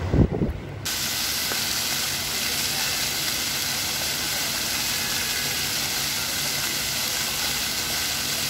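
Brief bump and rustle of a phone being handled, then, starting suddenly under a second in, a steady, even hiss of many small fountain jets splashing onto a paved plaza.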